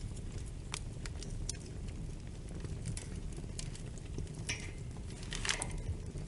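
Wood fire in a fireplace crackling over a steady low rumble, with scattered sharp pops and a brief flurry of louder crackles about four and a half and five and a half seconds in.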